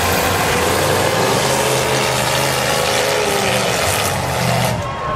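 Engines of full-size demolition derby cars running and revving in the arena, their pitch rising and falling.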